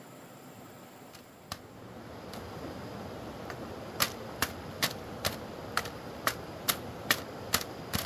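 A single sharp knock, then from about four seconds in a steady run of sharp knocks or chops at about two a second.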